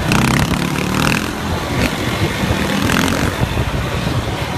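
ATV engine running close by, with uneven higher-pitched noise over it.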